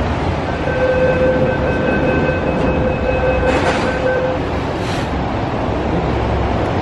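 MTR Tuen Ma Line train at an underground platform: a door-closing warning tone sounds for about three and a half seconds. Then come a couple of clunks as the doors shut, and the low rumble of the train as it starts pulling out near the end.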